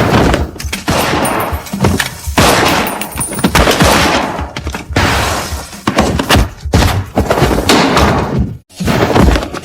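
Stylized sci-fi gun sound effects from a tokusatsu hero show: a run of shots and impacts with crashing, breaking noise, in several bursts, with a short break near the end.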